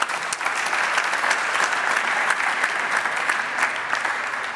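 Audience applauding, a dense patter of many hands clapping that holds steady and begins to fade near the end.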